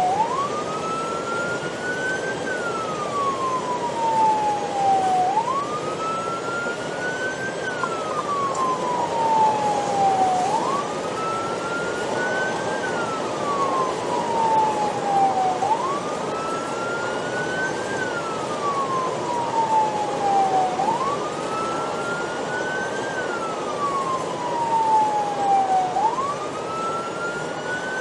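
Police car siren on the wail setting, each cycle a quick rise followed by a long slow fall, repeating about every five seconds. It is heard from inside the patrol car's cabin over steady road and engine noise.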